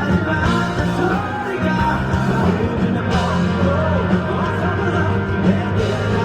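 Live rock band playing, with a male lead vocal singing over drums, bass and guitars.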